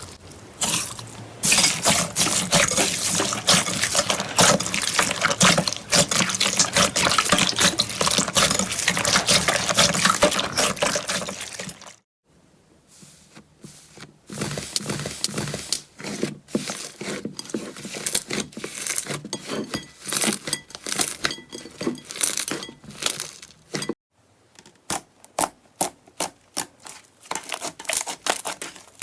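Slime being squished and worked by hand, making wet, sticky crackling and popping. The crackling is dense at first, then turns to sparser, separate clicks and pops after a break about twelve seconds in, and again after another break near the end.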